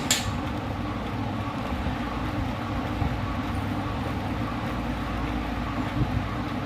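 Sowbaghya wet grinder running: a steady motor-and-belt hum as the grinding drum turns, running well again after a jammed bearing was dealt with. A brief sharp click right at the start.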